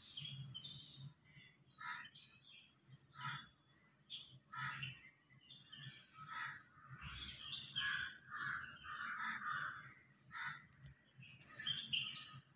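Crows cawing over and over, a short call every second or so, with a denser run of calls in the middle and some lighter bird chirps.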